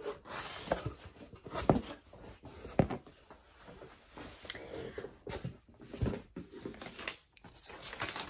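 A taped cardboard shipping box being opened and its contents handled: irregular crackling, rustling and tearing with scattered sharp knocks.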